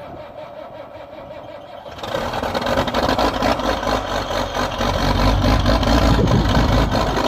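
Case IH 2188 combine's diesel engine being started: the starter cranks for about two seconds, then the engine catches and runs loud and steady, with water in the exhaust pipe after the snowstorm.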